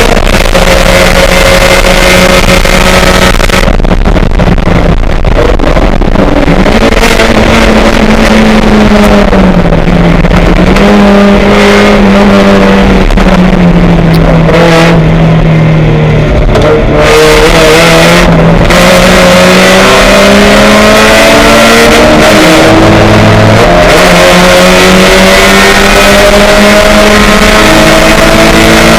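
Race car engine running hard and loud, its pitch rising and falling with throttle and gear changes, dropping lowest about halfway through before climbing again.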